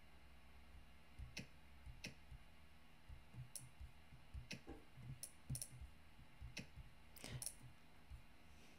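About a dozen faint, short clicks at irregular spacing: UI click sounds from an iOS app being tried out in the simulator, including a 'click one' button sound effect played at full volume, which still sounds a little loud.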